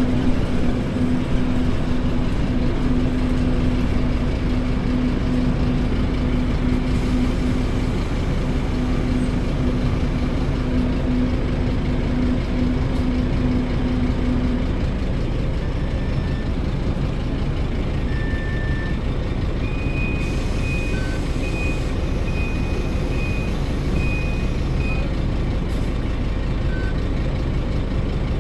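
Scania K310UD double-decker bus running steadily in Drive, its DC9 five-cylinder diesel engine and ZF automatic gearbox heard onboard. A steady whine in the first half stops about halfway. Later comes a broken run of short, high-pitched beeps.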